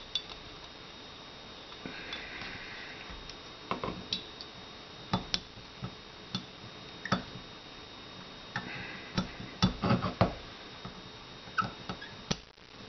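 Irregular light clicks and taps of small metal gun parts being handled: a Beretta PX4 Storm Compact pistol slide worked over by hand and with a steel pin punch on a wooden block. Two brief scratchy rubs come about 2 seconds in and again about 8 seconds in, and the loudest taps fall near the end.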